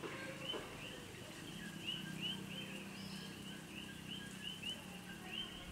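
Short, rising high-pitched chirps repeating two or three times a second, with a faint steady low hum underneath.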